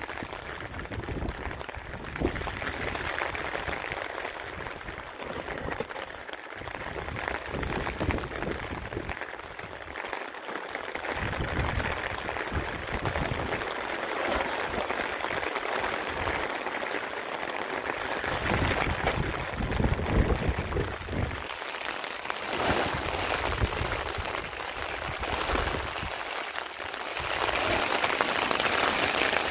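Heavy rain falling and water pouring, a steady hiss with uneven low rumbling through it, growing louder and brighter near the end.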